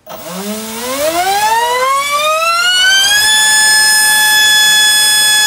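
Black Mantis 2847 3900kv inrunner brushless motor spinning a Gemfan 4045 prop on a 4-cell battery, throttled up from a standstill: a loud whine that rises in pitch for about three seconds, then holds steady at full throttle.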